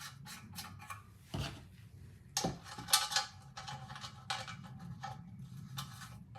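Metal parts and tools clinking and knocking on a workbench as a small outboard motor is taken apart by hand, in a run of irregular taps and clatters with a few louder knocks.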